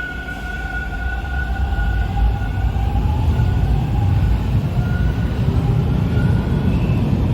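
TTC subway train pulling out of the station, its traction motors whining in a slightly rising tone over a wheel and track rumble that grows louder.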